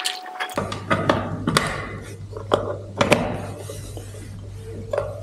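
Plastic plugs and cables clicking and knocking as a power adapter is plugged in and the amplifier wiring is handled. A steady low electrical hum comes on about half a second in, once the power is connected.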